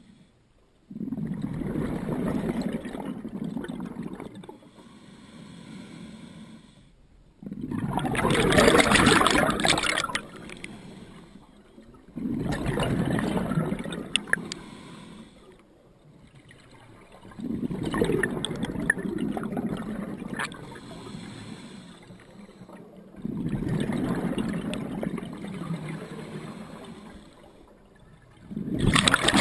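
Scuba diver breathing underwater through a regulator: a burst of rumbling exhaled bubbles about every five seconds, with quieter inhalation hiss between.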